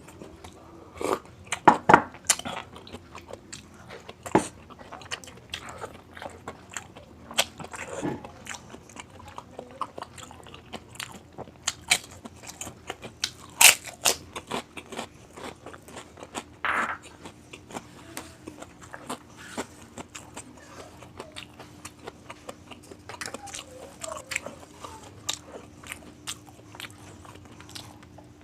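Close-up eating sounds: irregular crunchy bites and chewing of crisp food, one crunch about halfway standing out as the loudest. A faint steady hum comes in during the second half.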